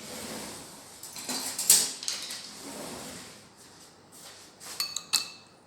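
Dishes and cutlery clattering and scraping in a kitchen, with a few sharp ringing clinks of a utensil against a dish near the end.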